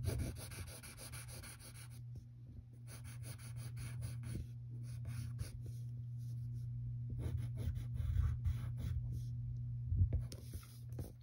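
Pencil scratching on paper in a series of separate strokes of about a second each, over a steady low hum.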